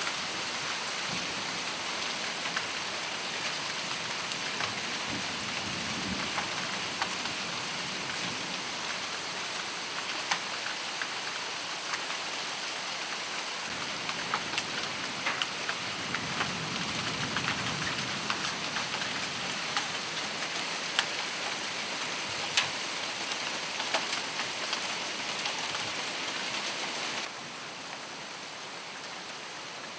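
Hail and heavy rain falling: a steady hiss of pouring rain, dotted with sharp ticks of hailstones striking leaves and the ground. The level drops a little near the end.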